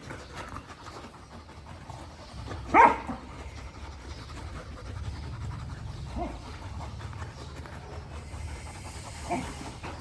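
Golden retriever panting steadily, with one short, loud sound of bending pitch about three seconds in and two fainter ones later.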